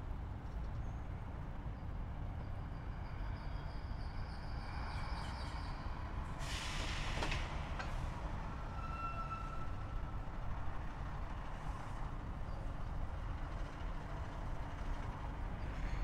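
Steady low rumble of distant city traffic, with a brief hiss about six and a half seconds in, like a heavy vehicle's air brake letting off.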